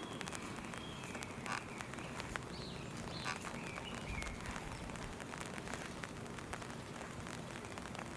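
Steady rain falling, with many separate drops ticking sharply on nearby surfaces.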